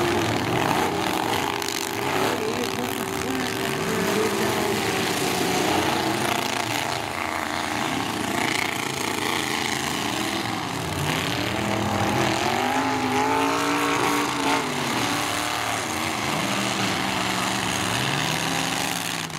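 Demolition-derby pickup truck engines revving, their pitch sweeping up and falling back again and again, over a loud steady din.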